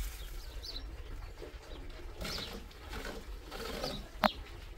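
Birds calling outdoors, short high falling chirps about every second and a half, over a low steady rumble. A single sharp click or knock sounds about four seconds in.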